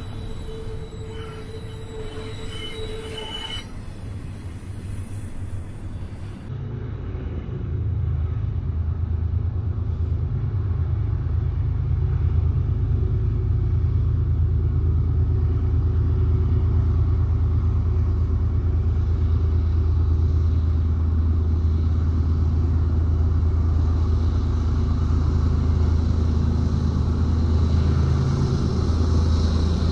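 Double-stack intermodal freight train of container-laden well cars rolling past, a steady low rumble of wheels on rail. A thin, high wheel squeal runs through the first few seconds, and the rumble grows louder about six to eight seconds in.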